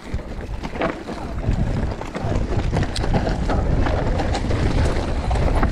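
Wind rumbling on the microphone while a mountain bike rides down a rocky trail, with scattered sharp clicks and rattles from the bike over the stones.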